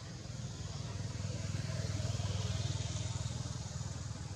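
A motor vehicle engine running, with a low pulsing hum that grows louder about halfway through and then eases off.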